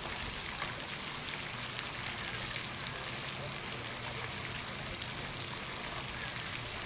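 Water from a 110-GPM floating pond-skimmer fountain falling back onto the pond, a steady splashing spray.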